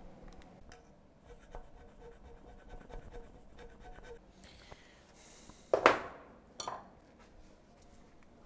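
Faint scratching and rubbing of hand work on the cast-iron dovetail slide of a 676P milling machine that is being hand-scraped. Two brief, louder noises come about six seconds in.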